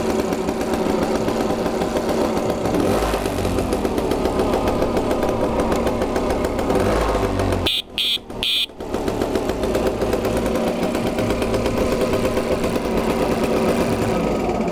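Restored Tomos Galeb scooter's two-stroke engine idling steadily while it stands on its stand. About halfway through, the engine sound breaks off for under a second, and two short high-pitched beeps are heard.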